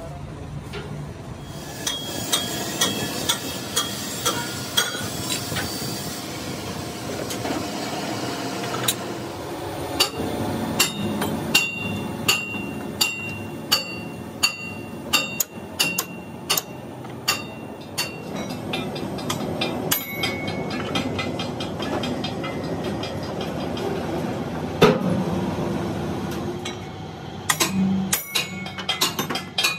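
Repeated hammer blows on a steel wheel centre disc held on a lathe, each a sharp metallic clang with a brief ring, about one or two a second through the first half and more spread out later, over the steady hum of workshop machinery.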